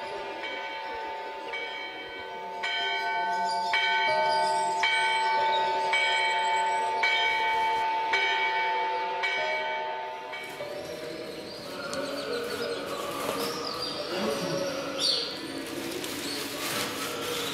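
Church bells ringing, struck about once a second with the tones ringing on between strokes. About ten seconds in the ringing gives way to a noisier outdoor ambience with birds chirping.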